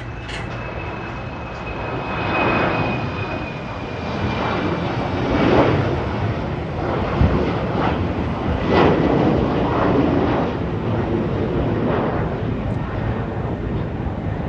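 Jet airliner engines at high power as the aircraft passes and climbs away. A loud rumbling roar swells and wavers, and a thin high whine drops slightly in pitch over the first few seconds.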